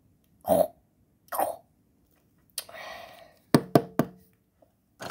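Three quick, sharp knocks of plastic toy figures being handled, about three and a half seconds in. They follow two short vocal sounds and a soft breathy rustle.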